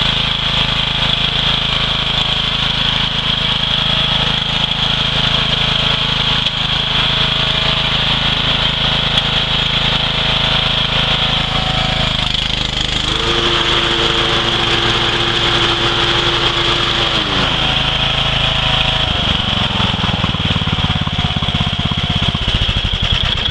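Bolens riding lawn tractor engine running steadily, its note changing about halfway through and again near the end.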